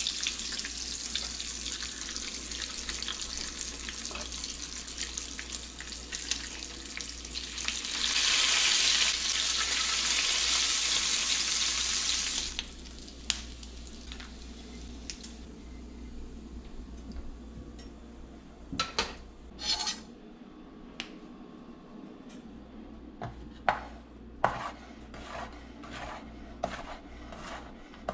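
Bacon sizzling in a frying pan, stirred and turned with a utensil, louder about 8 seconds in, then stopping abruptly about halfway. After that come scattered clinks and, near the end, short repeated strokes about twice a second.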